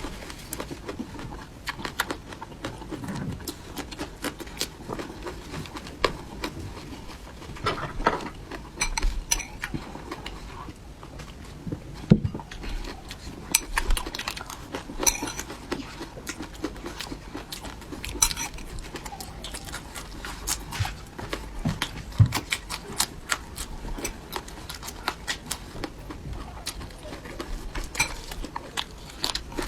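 Eating sounds: utensils clicking and clinking against a dish, with many short, sharp clicks at irregular intervals.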